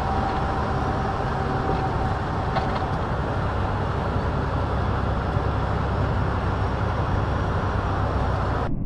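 Steady engine drone and road noise inside a semi-truck cab at highway speed, as picked up by a dash-cam microphone. The sound turns duller just before the end.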